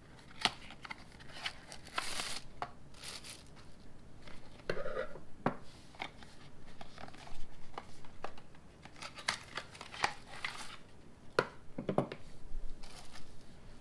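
Handling of new pliers and their packaging: crinkling and rustling with many sharp small clicks scattered throughout.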